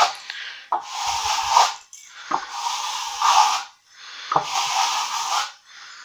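Plastering float scraping across a firming Thistle Multi-Finish skim coat in three long strokes of about a second each, each stroke starting sharply. This is the final floating of the wetted plaster to close up marks before it sets.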